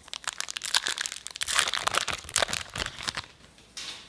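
Pokémon trading cards being slid and flicked through the hands, a dense run of rustling and light clicks that is thickest in the middle and dies down, with one more short rustle near the end.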